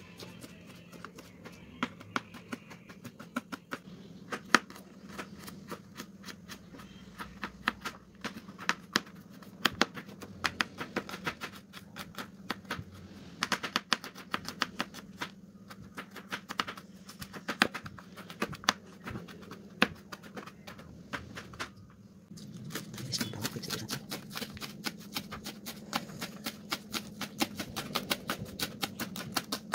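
Kitchen knife chopping quickly on a plastic cutting board, a long run of sharp taps, mincing wood ear mushroom, garlic and spring onion. A steady low hum runs underneath, and the chopping gets louder about two-thirds of the way through.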